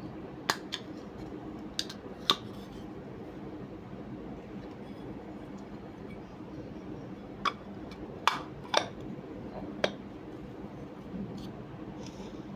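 Sharp metallic clicks and clinks of small parts or tools being handled, about eight in all: a few in the first two and a half seconds, more in a cluster in the second half. A steady low hum runs underneath.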